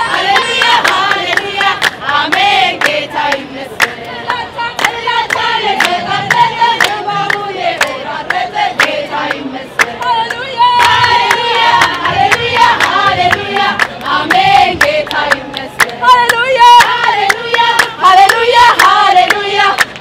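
A group of women singing together in unison, accompanied by steady rhythmic hand-clapping.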